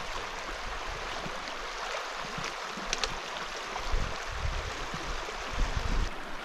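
Shallow river water rushing over and around rocks in a riffle, a steady hiss, with a few brief low bumps about four and six seconds in.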